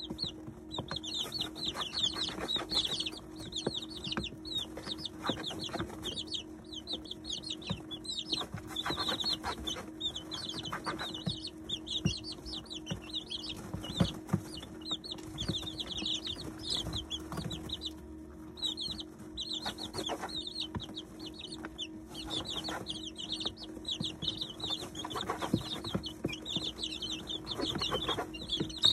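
A brood of 19-day-old chicks peeping constantly in a dense chorus of high chirps, with short taps and rustles of beaks pecking at grain feed. A steady low hum runs underneath.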